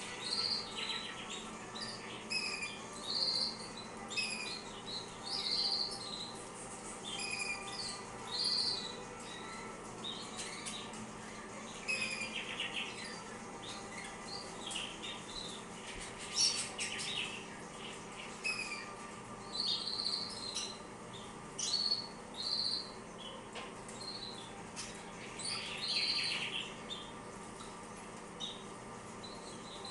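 Canaries chirping: short, high call notes repeated every second or two, now and then overlapping.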